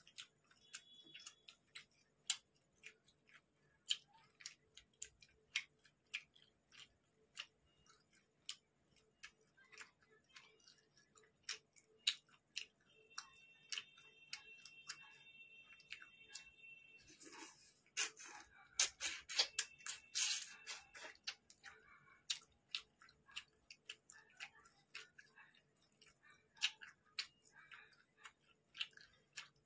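Bare fingers kneading rice into chicken and potato curry on a metal plate: a run of small wet, sticky clicks and squelches, thicker and louder for a few seconds about two-thirds of the way through.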